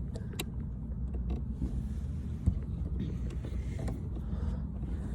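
Light clicks and rustling of a screwdriver and hands working at screws in a car's shift console, over a steady low rumble.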